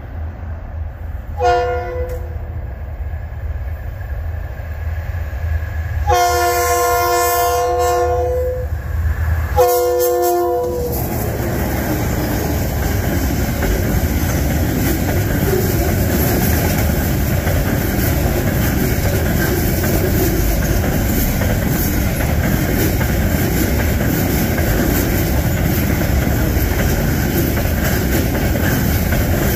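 Freight locomotive's horn sounding a short blast, a long blast of about three seconds, then another short blast as the train approaches. The horn is followed by the steady rolling rumble and wheel clatter of container wagons passing close by.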